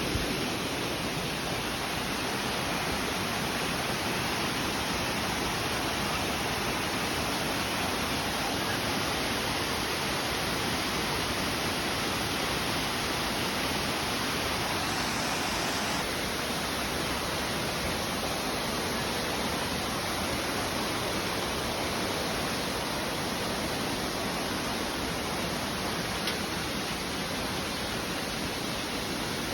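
Waterfall rushing steadily, a constant noise of falling water with no change in level.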